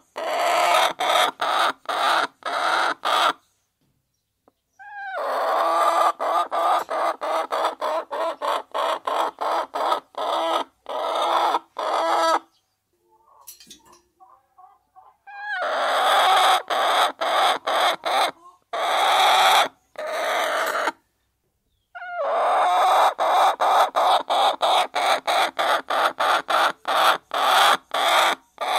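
A flock of hens clucking as they peck at feed, with rapid, regular pecking taps. The sound comes in stretches of several seconds that stop abruptly, with three short silent gaps.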